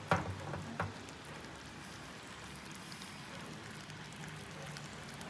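Sugar-and-water syrup boiling in an aluminium wok over a gas burner, a steady fine crackle of small bubbles popping as it cooks down toward caramel. A couple of sharp knocks in the first second.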